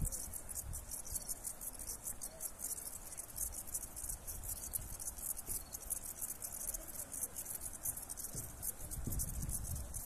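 Insects chirping in a fast, steady, high-pitched pulsing trill, with wind rumbling on the microphone, stronger near the end.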